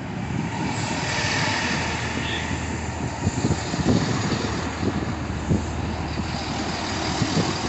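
GWR Class 165/166 Turbo diesel multiple unit running past along the platform: a steady diesel drone and wheel-on-rail hiss, with irregular low knocks from the wheels and running gear.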